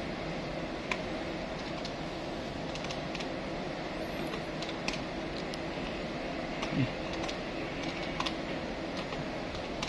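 Desktop electronic calculator keys tapped with a pen tip: scattered light clicks as a number is keyed in, over a steady background hum. A short low sound stands out about seven seconds in.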